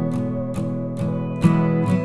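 Background music: an acoustic guitar strummed in a steady rhythm, about two strums a second.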